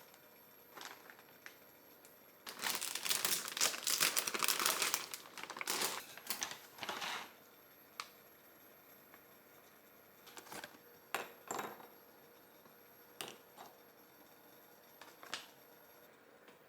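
Crinkling and rustling of a crinkly wrapper being handled in a dense spell of a few seconds, followed by several short light clicks and taps.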